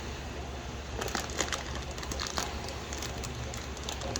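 Plastic fish bag crinkling and clicking in the hands as it is turned, with scattered sharp crackles over a steady low hum.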